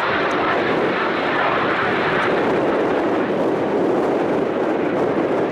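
A military jet aircraft's engine noise, a loud, steady rushing sound.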